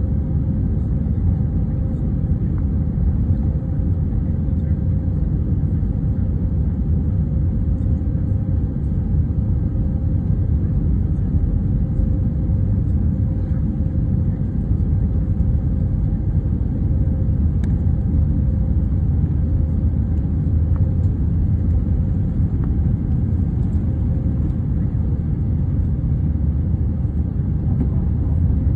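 British Airways Airbus A319 jet airliner taking off: a steady low rumble with a faint steady hum, holding level without rising or falling.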